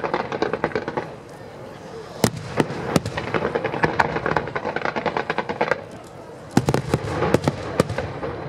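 Fireworks display: aerial shells bursting with sharp bangs over a continuous crackle and pops, with a loud bang about two seconds in and a quick run of bangs near the end.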